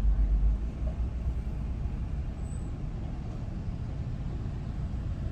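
Vehicle driving on the road: a steady low rumble of engine and road noise, heaviest in about the first second.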